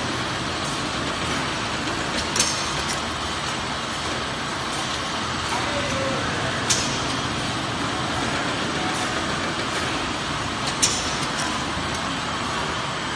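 Automatic snack-food processing and packing line running: a steady mechanical hum and hiss of conveyors and machinery, with a few sharp clicks now and then.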